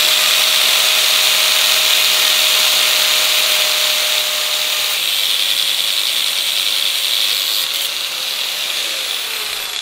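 Handheld angle grinder cutting through a bent bolt on a bicycle hub's chainring mount. It gives a steady motor whine under a loud hiss of grinding. Near the end the whine falls in pitch as the grinder winds down.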